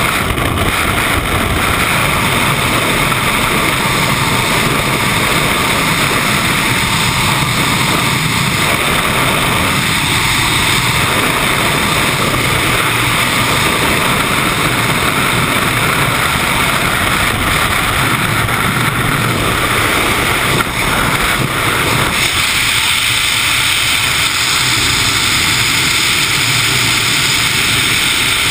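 Freefall wind rushing over a GoPro camera's microphone during a skydive: a loud, steady rush with no break. A little over three-quarters of the way through, the deeper part of the rush thins out.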